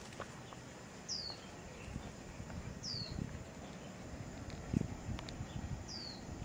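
A bird repeating a short, high, downward-sliding call three times, a second and a half to three seconds apart, over leaf-litter rustling and low thuds of footsteps or handling, one thud louder near the middle.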